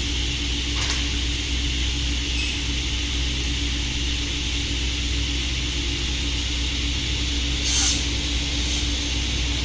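Woodworking saw running steadily with no cut being made: a constant hum with a high whine above it. One short knock about eight seconds in.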